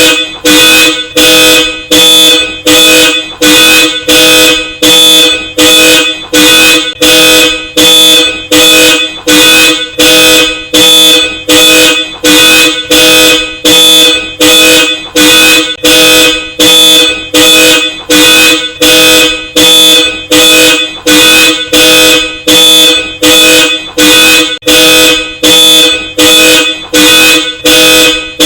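Car alarm sounding through a Hella Supertone dual-tone horn: loud, evenly spaced honks at about three every two seconds.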